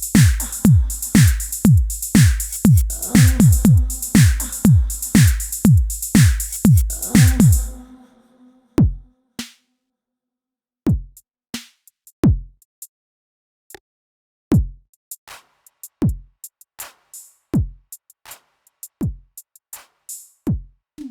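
Korg Triton Extreme VST drum sounds playing a drum-machine beat: deep kicks that drop in pitch under sharp hi-hat and snare hits for about eight seconds, then the pattern thins out to sparse single kicks and clicks.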